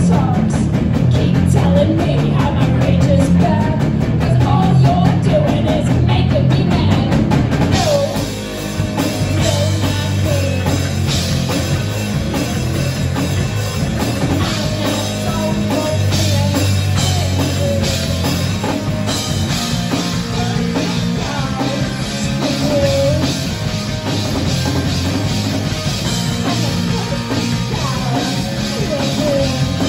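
Live rock band playing: electric guitar, electric bass and drum kit, with a woman singing into the microphone. After a brief drop about eight seconds in, the drums and cymbals come back in harder.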